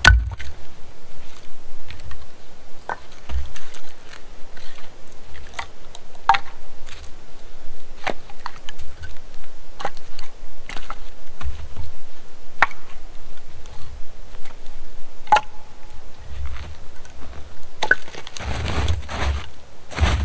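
Split firewood pieces knocking together as an armload is gathered, in scattered sharp wooden clacks, over footsteps crunching in snow; a run of crunching footsteps near the end.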